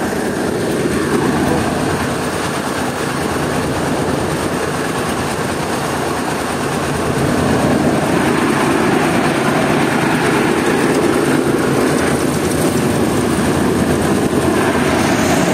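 Mobile rice mill running: its engine drives the milling machines in a steady, dense mechanical din, a little louder from about seven seconds in.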